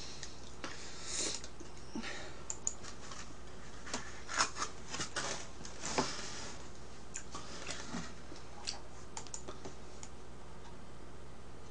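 Scattered light clicks and taps, thickest in the middle and thinning toward the end, over a steady low hum.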